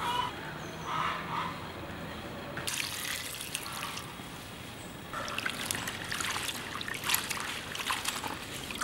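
Water running into a pot of sliced jackfruit seeds, then hands swishing and rubbing the seeds in the water to wash them, with irregular splashes.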